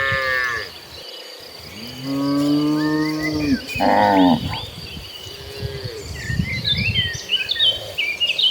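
Cattle mooing: three long lowing calls, one right at the start and two more between about two and four and a half seconds in. High chirping calls follow near the end, over a steady high insect trill.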